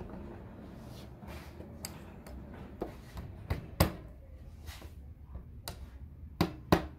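Hammer tapping a small nail, held in needle-nose pliers, into the wooden sewing table top. A few scattered light taps come through the middle, then quick regular strikes start near the end, about three a second.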